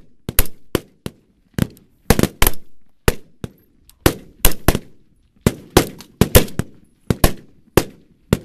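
Rifles firing a rapid-fire string on a firing line: sharp shots from several rifles, at about two a second in an irregular, overlapping rhythm, each with a short echoing tail.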